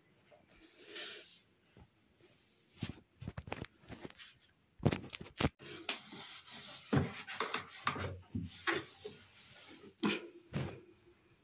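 Appliance-cleaning handling sounds: scattered clicks and knocks, with short stretches of rubbing and wiping noise.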